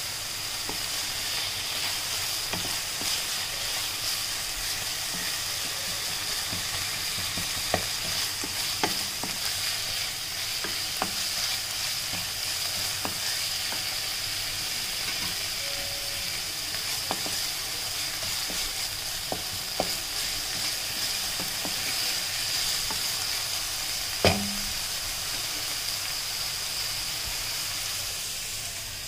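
Sliced green capsicum sizzling as it stir-fries in a nonstick pan, a steady frying hiss, with a wooden spatula scraping and tapping against the pan now and then. One louder knock comes late on.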